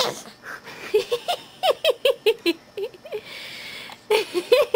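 A baby's high-pitched squeaky vocal noises: short chirping squeals in quick runs, with a breathy pause between them.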